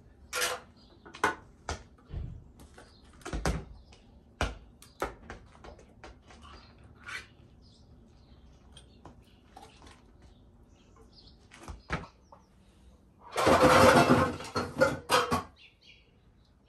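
Tinned tuna cans being handled while their oil is drained: a string of sharp metallic clicks and knocks, with a louder, noisier clatter lasting about two seconds near the end.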